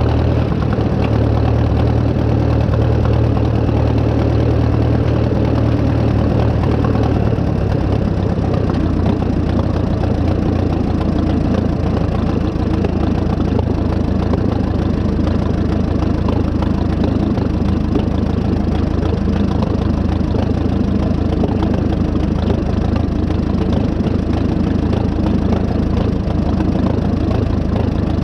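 Farmall F-20 tractor's four-cylinder engine running steadily while it pulls a hay rake.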